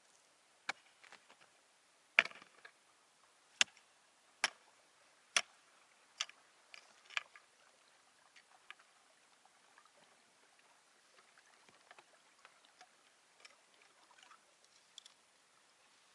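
Sharp knocks and clicks of a metal tool at a trap set in snow, as the trap is worked at to be closed and taken up. About seven loud knocks come in the first six seconds, then fainter taps and clicks.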